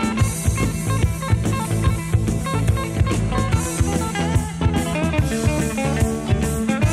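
Rock urbano recording: guitar over bass and a drum kit keeping a steady beat.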